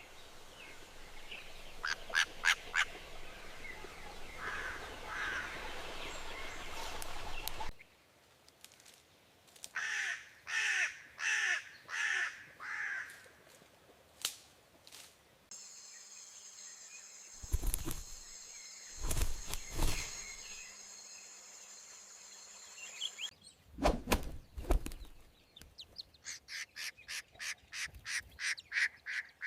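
Bird calls in repeated series, one run in the middle and a faster run growing louder near the end, broken up by a steady high-pitched tone and several sharp thumps.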